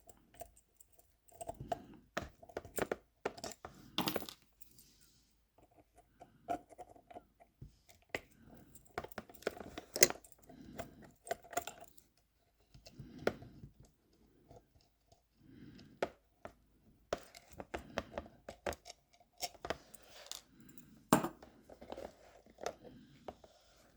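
Scattered small clicks, taps and scrapes of metal parts handled by hand: a small brass lock box being unscrewed and taken apart. The clicks are irregular, with a few sharper knocks, and one of the loudest comes about ten seconds in.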